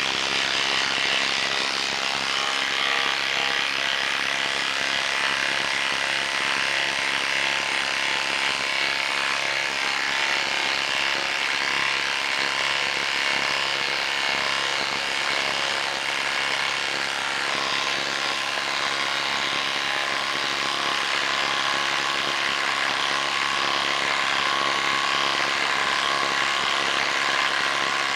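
Bosch Freak 18V cordless impact driver hammering steadily under load as it drives an 8-inch lag screw into a wooden log.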